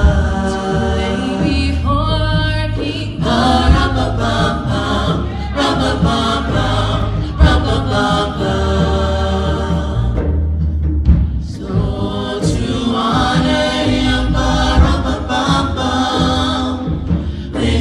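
Music: several voices singing together over a heavy low bass and drum.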